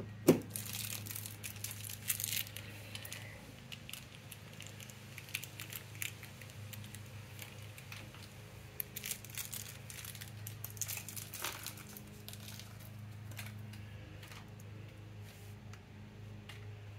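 Hands handling scooter battery leads and small terminal bolts: plastic-insulated wires rustling and crinkling, with light metal clicks and a sharp click about a third of a second in. A steady low hum runs underneath.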